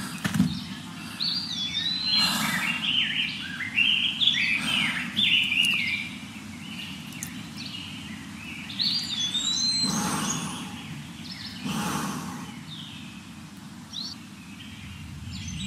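Birds chirping and twittering in quick rising and falling calls, in two flurries, over a steady low background rumble.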